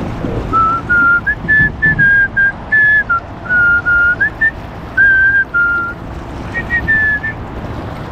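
A person whistling a tune: a string of short held notes that step up and down, stopping near the end, over a steady low background noise.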